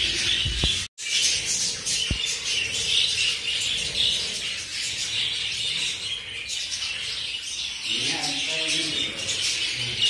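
A flock of budgerigars chattering and warbling all at once, a dense, continuous high-pitched twittering, briefly cut off just before a second in.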